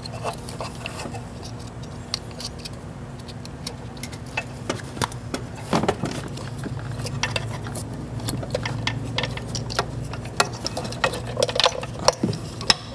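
Irregular small plastic clicks and rattles of ignition coil wiring harness connectors and wires being handled and pushed together, over a low steady hum.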